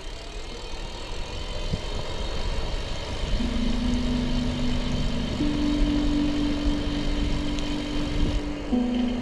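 Motorcycle engine and road rumble while riding, growing louder over the first few seconds. From about three seconds in, steady held tones sit over the rumble and shift pitch a couple of times.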